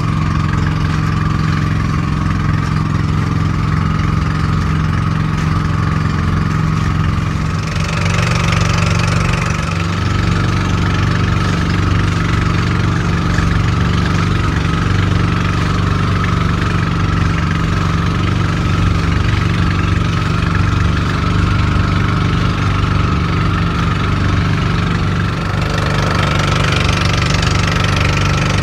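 An engine running steadily at an even speed. A rushing hiss grows louder about eight seconds in and again near the end.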